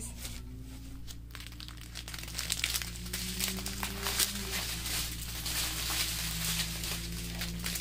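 Plastic packaging crinkling as small bags of diamond-painting drills are handled and sorted. The crinkling is sparse at first and grows denser about two seconds in.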